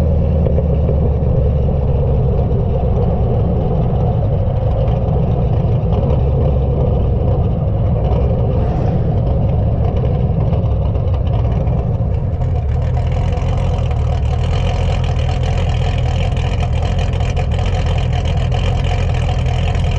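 Exhaust of a 2015 Camaro SS's 6.2-litre V8, fitted with a TSP Stage 1 VVT cam, 1 7/8 long-tube headers and a Borla ATAK axle-back, running steadily as the car cruises. The sound turns crisper about twelve seconds in.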